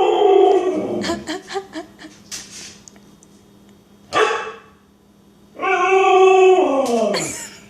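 A husky making Chewbacca-like noises: two long drawn-out calls, each dropping in pitch at the end, with a short sharp yip about four seconds in.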